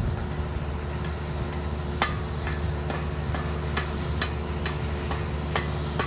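Skid-steer sweeper running steadily down the road as it brushes the aggregate base clear of dust. From about two seconds in come irregular sharp ticks, a few each second.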